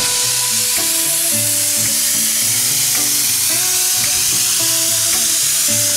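Loud, steady hiss of steam blasting out low at the front of a small Hunslet narrow-gauge quarry saddle-tank steam locomotive. It starts abruptly and holds level.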